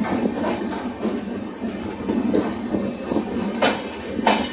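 Passenger train pulling slowly out of the station, heard from one of its own coaches: a steady rolling rumble with the wheels clacking over the track, two sharp clacks near the end the loudest.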